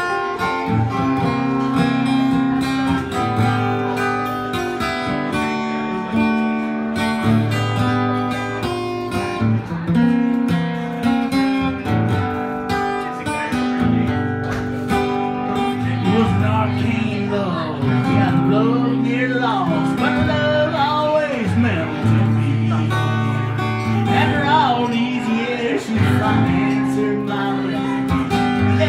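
Two acoustic guitars playing a song together, strummed and picked, with a man's voice singing over them from about halfway through.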